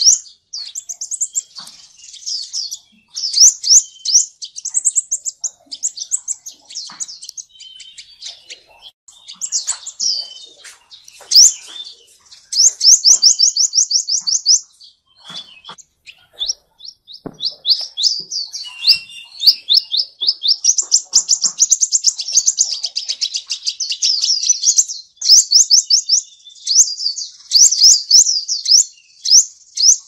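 Sunbird singing: a long run of rapid, high-pitched chirps and fast twittering trills, note after note, with a brief pause about fifteen seconds in.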